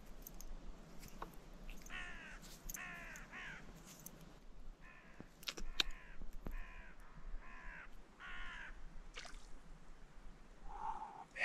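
A crow-like bird cawing repeatedly, about nine harsh calls in short runs, with a few faint clicks from fishing tackle being handled.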